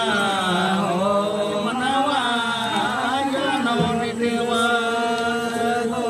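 Voices chanting, with long held notes that glide between pitches and settle on a steady note in the second half.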